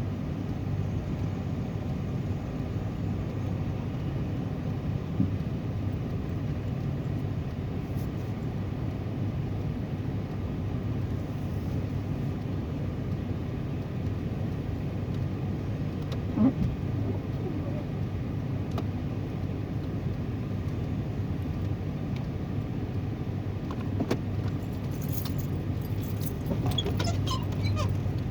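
Car engine running steadily, a low rumble heard from inside the car, with a few single clicks and light jingling near the end.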